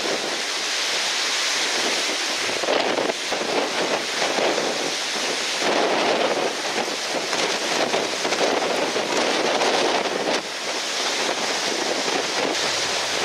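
Strong wind buffeting the microphone over rushing, splashing water, the noise surging and easing every second or two.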